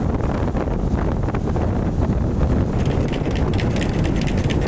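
Wind buffeting the microphone in a loud, steady low rumble, with a run of quick, sharp crunching clicks coming in a little past halfway.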